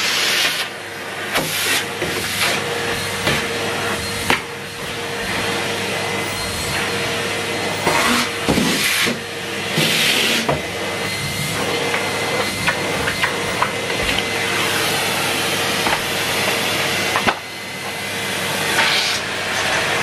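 Numatic Henry Turbo cylinder vacuum cleaner running steadily with a constant hum and whine, its suction hissing as the floor tool works over stair carpet. The hiss rises and falls several times, and there are a few light knocks of the tool.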